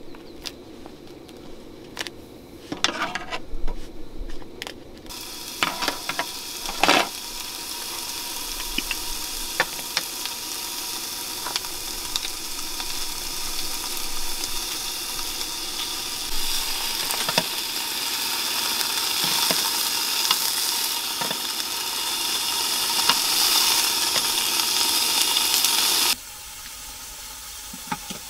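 Slices of wagyu beef sizzling in a hot frying pan on a portable gas canister stove. A few clicks and taps of handling come first, then the sizzle starts suddenly about five seconds in as the meat goes into the pan. It grows louder and cuts off abruptly near the end.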